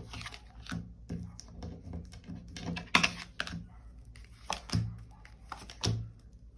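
Tarot cards being handled and laid out on a table: an irregular series of light clicks and taps, with a sharper snap about three seconds in.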